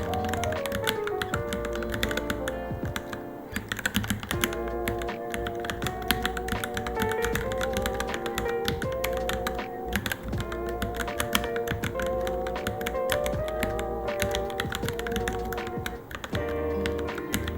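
Continuous fast typing on a Varmilo Minilo mechanical keyboard: a dense, irregular stream of key clicks, several a second, over background music with wavering sustained tones.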